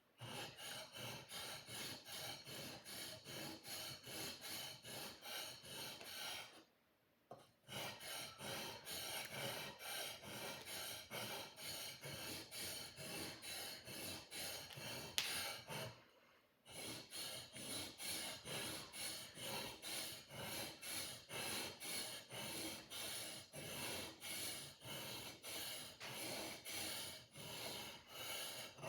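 A sword blade being sharpened: steady rasping strokes of the sharpener along the edge, about two a second, stopping twice for about a second each. There is a single sharp click around the middle.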